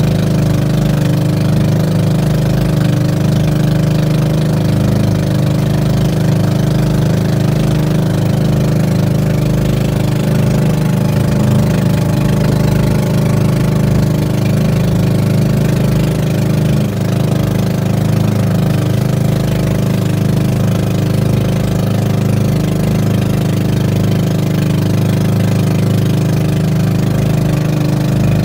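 Small motor boat's engine running steadily at a constant speed, with no change in pitch.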